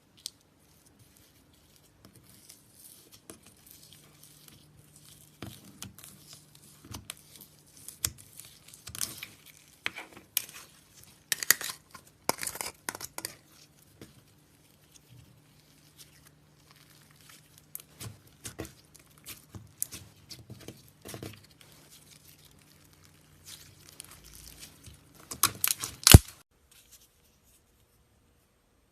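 Slime being stretched, squeezed and folded by hand, giving irregular sticky crackling and popping. A loud burst of crackles comes a little before the end, then it falls quiet.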